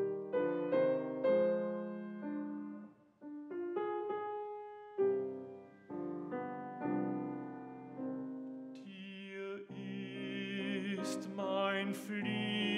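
Steinway grand piano playing a slow interlude of held chords between sung phrases of a German sacred art song. About nine seconds in, a male classical voice comes in over the piano, singing with a wide vibrato.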